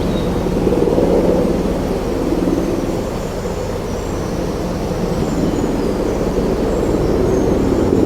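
Wind blowing in a steady low rush that swells and eases, with faint bird calls high above it.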